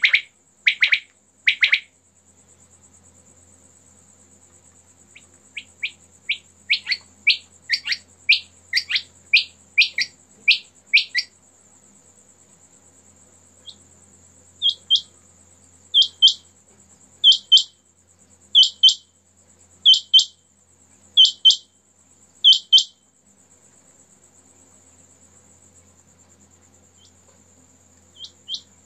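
Quail calling in short, sharp, repeated notes: a quick run of a dozen notes that grows louder, then pairs of higher notes about every second and a half, with a gap before a last pair near the end.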